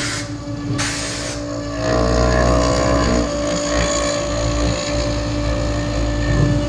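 CNC router spindle running at about 18,000 rpm with a steady whine while a spiral bit mills a pass through end-grain larch. There are short bursts of hiss in the first second. About two seconds in, the cutting gets louder and rougher and stays that way.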